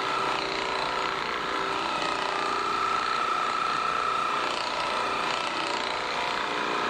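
Handheld electric massager running steadily on a patient's back to loosen the muscles before a chiropractic adjustment: a continuous mechanical hum with a steady whine.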